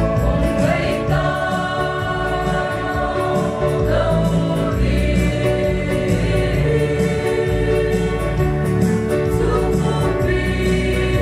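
Mixed choir of men and women singing a gospel hymn together into microphones, holding long notes that change every second or two.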